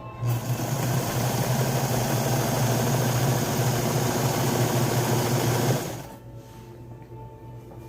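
Sewing machine running at a steady speed for about five and a half seconds while stitching quilt pieces, then stopping.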